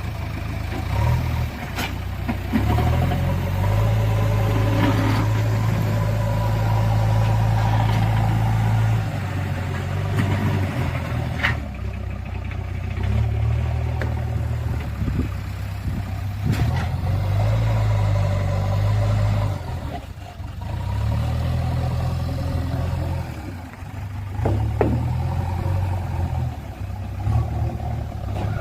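JCB backhoe loader's diesel engine running, its note repeatedly rising under load and dropping back as the machine works, with a few sharp metallic clanks.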